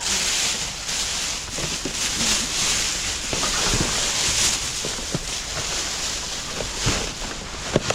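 Steady rushing wind noise on the microphone, with a few light knocks and rustles scattered through it.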